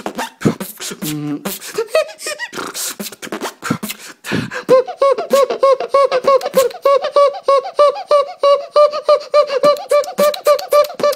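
Beatboxing: fast mouth-made drum strokes and clicks, then from about five seconds in a pitched, squeaky vocal note repeated about four or five times a second over the beat.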